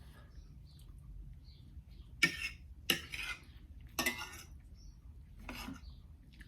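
Cutlery clinking against a dish four times at uneven intervals while food is scooped up, each a sharp clink with a short scrape after.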